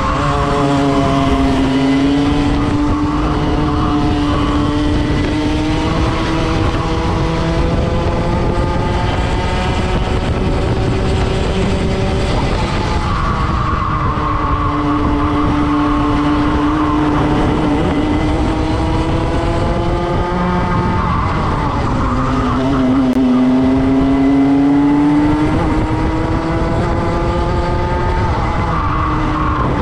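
Racing kart engine at high revs, heard onboard through a lap. The pitch climbs steadily along each straight and drops sharply under braking three times, about 13, 21 and 29 seconds in.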